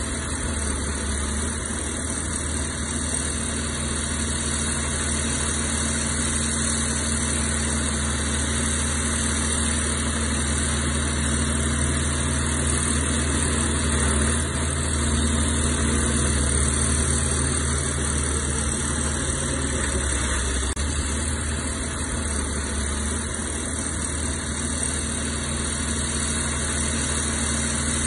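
Heavy diesel earthmoving engine running steadily at a low, even pitch, swelling slightly about halfway through.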